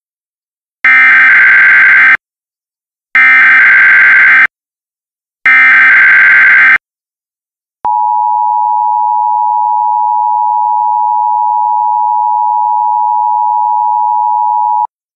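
Emergency Alert System alert tones: three short bursts of SAME header data, each a little over a second long with a second's gap between them. They are followed by the steady two-tone EAS attention signal (853 and 960 Hz) held for about seven seconds, which announces that a warning message follows.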